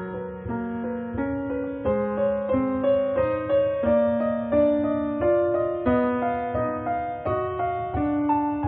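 Background piano music: a melody of held notes that change in steps every half second or so.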